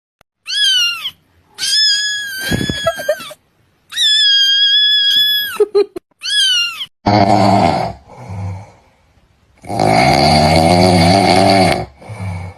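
A cat meowing four times, some calls falling in pitch and some held level, then two long, lower wails that waver in pitch.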